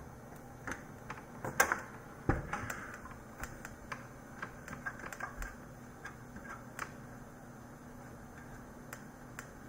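Irregular light clicks and taps of hands working on computer hardware, a dozen or so over about six seconds, with a sharper click and a low thump about two seconds in, and two more faint clicks near the end.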